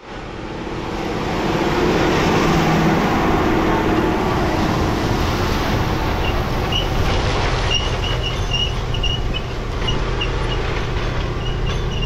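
Case IH Quadtrac four-track tractor pulling a disc chisel through corn stalks. The engine runs under load with the steady rush of soil and stalks through the discs and shanks, fading in over the first second or two.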